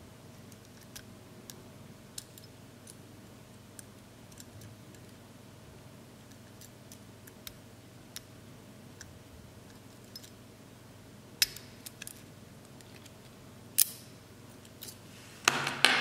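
Lock pick and tension wrench working the pins of a laminated steel padlock: faint, scattered metallic clicks, a few sharper clicks after about eleven seconds, and a louder scraping rattle at the very end.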